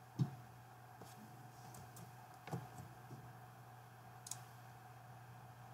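A few faint, separate computer mouse clicks over a steady low hum.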